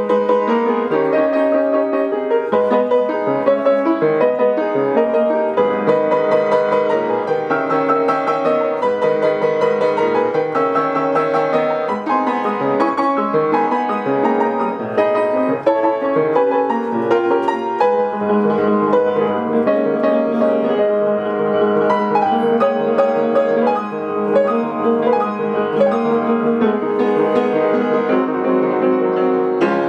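Solo piano music: a piece played continuously, with several notes sounding together as chords.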